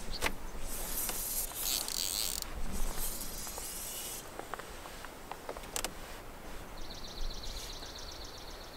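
Fly line swishing through the air in repeated false casts with a fly rod, with a few light clicks, then a rapid, even high trill for about a second and a half near the end.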